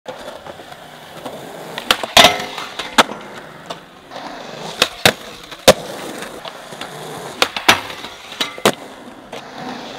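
Skateboard wheels rolling on concrete, broken by sharp cracks of the board's tail pops and landings, the loudest about two seconds in. The trucks also grind along a round metal rail.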